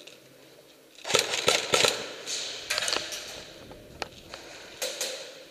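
A quick run of sharp clicks and knocks about a second in, followed by scattered single knocks.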